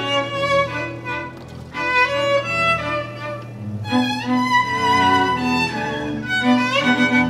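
Background music: a violin melody with sliding notes over a steady low drone.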